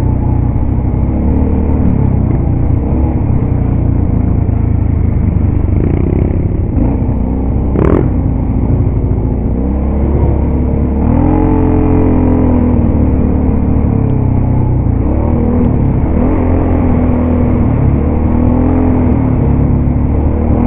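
ATV engine running steadily while riding a rough dirt trail, its pitch rising and falling several times in the second half as the throttle is worked. A single sharp knock about eight seconds in.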